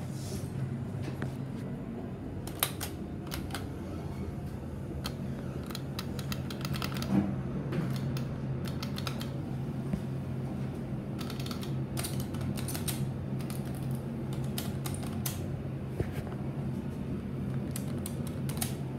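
Dover hydraulic elevator car in motion with a steady low hum, with scattered light clicks and rattles over it.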